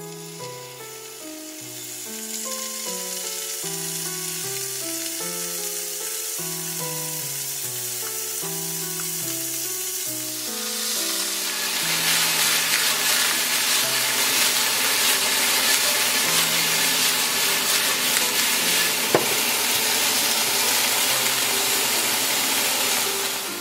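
Pork pieces frying in oil in a nonstick frying pan, a steady sizzle that grows much louder about halfway through as more meat fills the pan. Background music with a simple melody plays under the first half, and there is one sharp click near the end.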